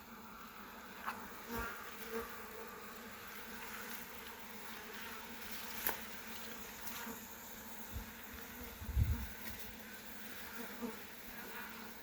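A colony of honeybees in an opened hive buzzing steadily, with a few sharp clicks and knocks from the frames being handled and a louder low bump about three-quarters of the way through.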